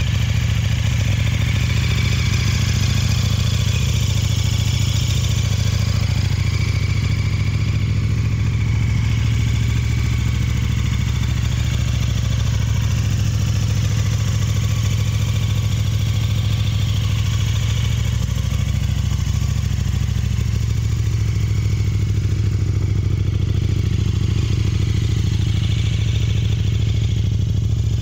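KTM 1290 Super Duke GT's V-twin engine running steadily at idle, heard through its Akrapovic slip-on silencer.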